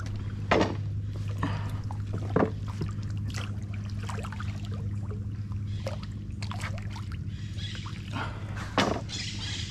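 Water splashing and dripping in short, irregular bursts as a fishing longline is worked from a canoe, over a steady low hum.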